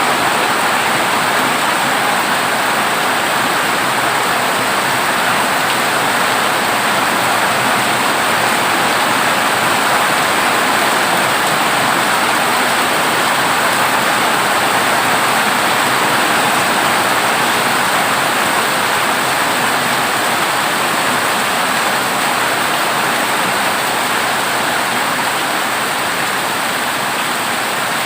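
Heavy rain falling steadily on a corrugated zinc roof, a loud, even downpour.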